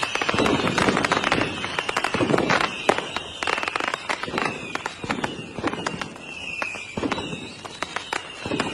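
Fireworks going off: a string of bangs and crackling, with a high whistle that slides down in pitch every couple of seconds.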